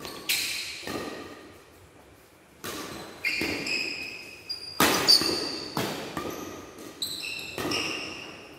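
Badminton rally: rackets striking the shuttlecock in a string of about nine sharp smacks, irregularly spaced from about half a second to a second and a half apart, each ringing on in the hall's echo. Short high squeaks of court shoes on the floor come between the hits.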